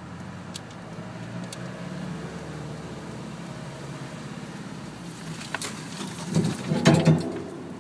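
Off-road vehicle's engine running at low revs, heard from inside the cab. From about five and a half seconds in, a burst of loud knocks and scrapes follows as overhanging branches hit the vehicle.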